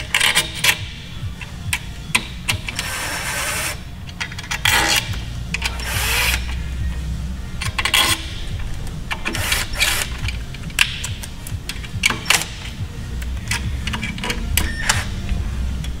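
Hand tools clicking and clinking in short, irregular bursts as the clutch pack's bolts are run in and snugged in a cross pattern.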